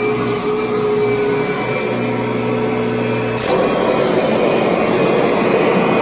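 Kirby upright vacuum cleaner running on carpet with a steady motor hum. A little past halfway there is a short click, and the sound turns rougher and slightly louder.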